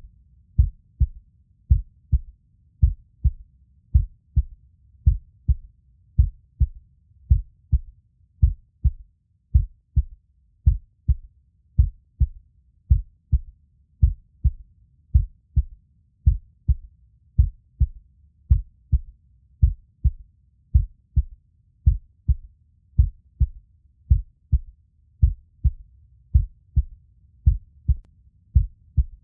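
Heartbeat: a steady, even rhythm of low, soft thumps, about two a second.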